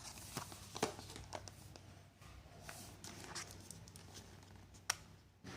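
Small earbud product boxes being handled and turned over: scattered light taps and clicks with soft rustling, and one sharper click near the end.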